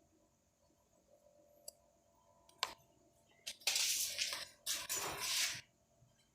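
Handling noise around a racing pigeon being treated by injection: a couple of faint clicks, then two bursts of rustling about a second each, a little past halfway.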